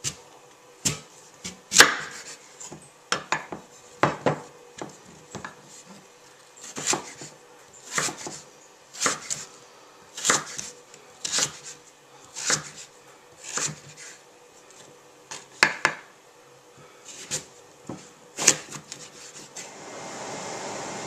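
Chef's knife slicing peeled sweet potatoes into strips on a wooden cutting board, each cut ending in a sharp knock of the blade on the board, about once a second.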